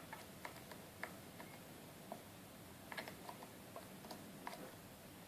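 Faint, irregular small metallic clicks of a lock pick working the serrated spool pins of an American Lock A1100 padlock under very light tension, with the lock held in a false set.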